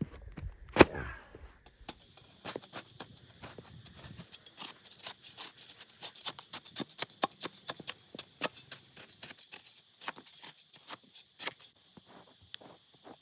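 Dry leaves and twigs crunching and snapping: one sharp knock, then a long run of irregular crackling clicks, over a faint steady high whine.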